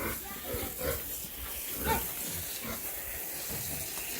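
Pigs grunting, a few short irregular calls, one of them a brief higher note about two seconds in.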